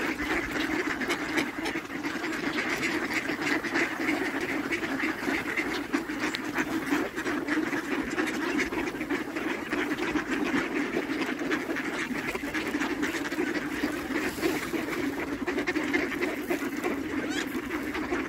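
A large flock of mallard ducks quacking without pause, many calls overlapping throughout.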